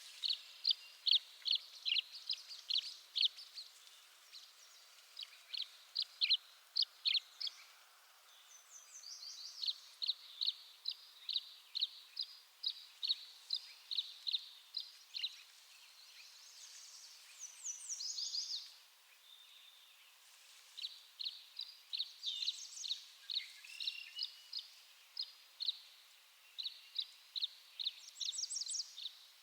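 Tree swallow calls: runs of short, sharp high chirps, a few a second, broken now and then by quick clusters of higher, falling notes.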